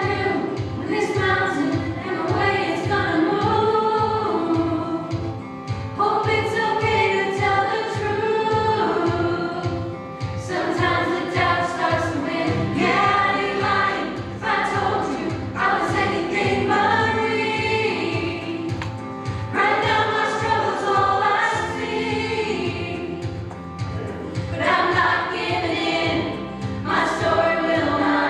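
Youth choir singing a contemporary worship song in unison over an accompaniment with a steady pulsing bass beat, the singing coming in phrases with short breaks between lines.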